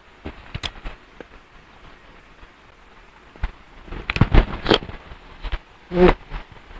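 Close-up eating sounds of a battered quail egg (kwek-kwek) being bitten and chewed: sparse soft clicks at first, then a cluster of wet smacking and chewing clicks about four seconds in. A brief hummed sound follows about six seconds in.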